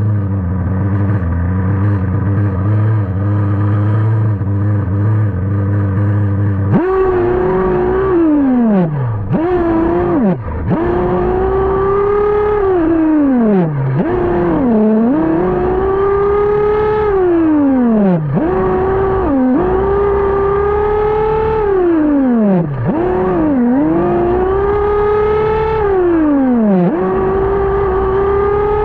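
Losi nitro RC buggy's small glow-fuel engine idling steadily, then from about seven seconds in revving up and dropping back again and again as the throttle is worked. The engine is still on its break-in tune, barely leaned out.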